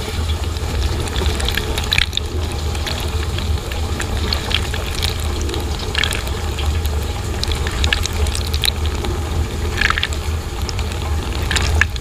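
Water spraying inside a running V-Zug Adora N dishwasher, splashing onto dishes and striking close by in sharp drops, over the steady low hum of the circulation pump.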